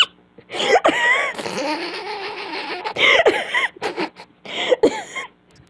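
A person laughing hard in several high-pitched, breathy bursts with short gaps between them, trailing off near the end.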